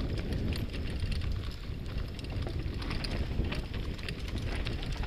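Mountain bike rolling fast over a rough, stony dirt singletrack: a steady low rumble with frequent clicks and rattles from the bike and stones under the tyres.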